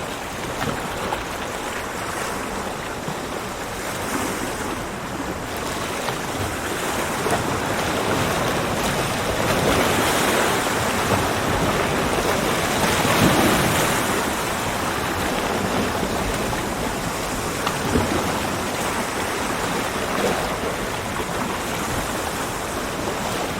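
Ocean surf washing onto a beach, a steady rush of water that swells to a louder breaking wave about halfway through and then eases back.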